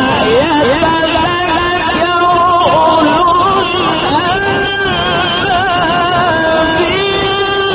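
A male Quran reciter's voice chanting in the melodic mujawwad style: long held notes with ornamental turns and glides.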